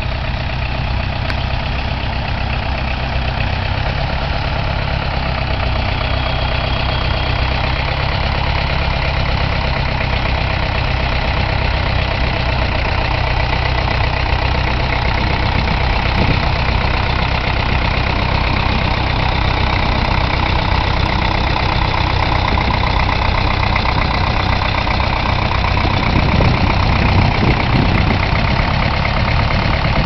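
Tractor engine running under load as it pulls a plough up a slope, straining to get going, with the furrow wheel thought to be spinning some of the time. Steady, growing a little louder toward the end.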